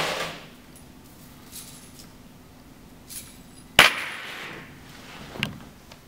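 A crumpled paper ball rustling, with a sharp knock about four seconds in followed by about a second of rustle, then a smaller knock shortly before the end.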